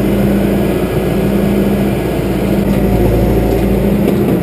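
John Deere backhoe's diesel engine running steadily.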